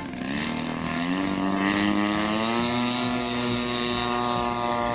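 Engine of an RC warbird model airplane opening up to full throttle for its takeoff run. The pitch rises steadily over the first two and a half seconds, then holds level as the plane lifts off.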